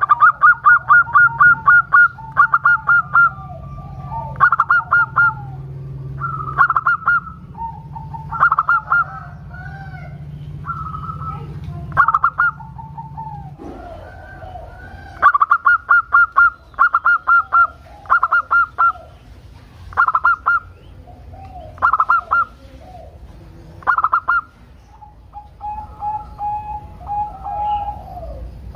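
Zebra dove (local perkutut) singing its rapid staccato cooing song. Short bursts of quick notes come every second or two, with lower gliding coos between them.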